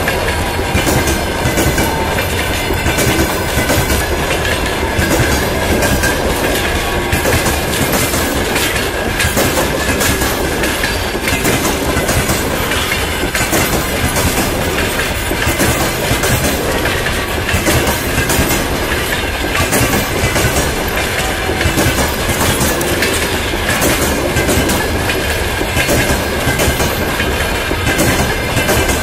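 Loud, steady clickety-clack and rumble of passenger-coach wheels running past at close range, the wheelsets clicking over the rail joints one after another.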